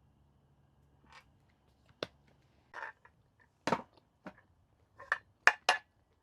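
A series of irregular knocks and clatters of objects being handled, about eight in all, growing louder, with the loudest near the end.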